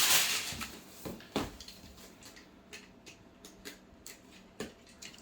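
Packaging and kit parts being handled: a rustle fading out at the start, then scattered light clicks and a few sharper knocks, the loudest about a second and a half in.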